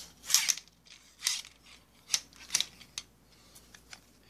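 Short clicks and scrapes of an antique baitcasting reel and a telescopic rod's grip being handled as the reel is fitted onto the rod, roughly one every half second, thinning to faint ticks near the end.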